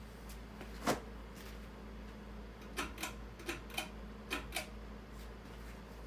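Steady low hum as a Fanimation Huxley ceiling fan is started on its low speed, with one sharp click about a second in and a string of about six light clicks and taps a couple of seconds later.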